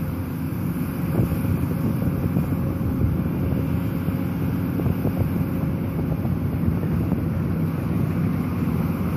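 Hidromek 300 LC-3 tracked excavator's diesel engine running steadily under working load while it digs and lifts a full bucket, with wind buffeting the microphone.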